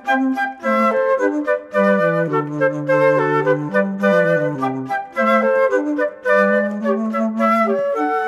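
Instrumental background music: a melody of quick, short notes, with lower held notes about two seconds in that give way to the quick melody again near the five-second mark.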